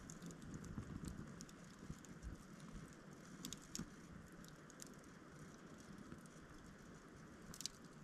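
Campfire wood burning with faint, scattered crackles and pops, a few sharper snaps about halfway through and near the end.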